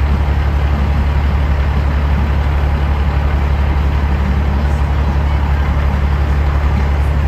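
Large engine idling with a steady low rumble.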